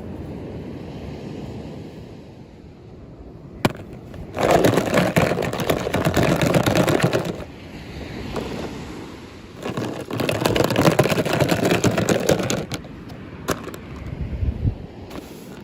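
Packaging being handled and rustled while a toy is unboxed: a sharp click, then two loud stretches of crackling rustle a few seconds each, with softer handling noise between them.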